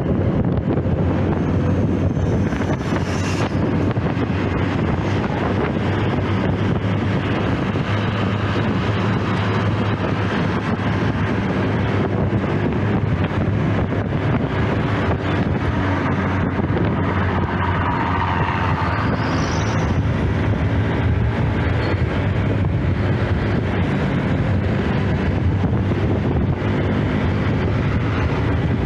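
Honda automatic scooter's engine running steadily under way, its low hum mixed with heavy wind noise on the microphone and the sound of passing road traffic.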